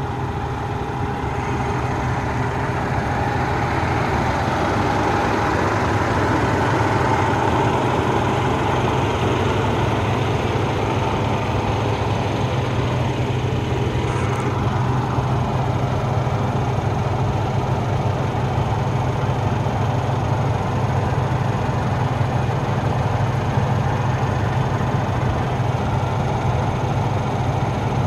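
Heavy-duty diesel engine of a Freightliner Cascadia semi tractor idling steadily, a constant low hum.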